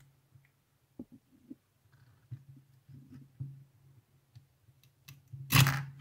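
Tin snips cutting through a strip of perf board: a few faint small clicks, then one sharp, loud crack about five and a half seconds in as the board snaps through.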